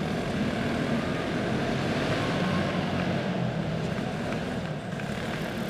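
Racing karts with single-cylinder four-stroke OHV clone engines running at speed around the dirt oval, a steady drone of several engines together.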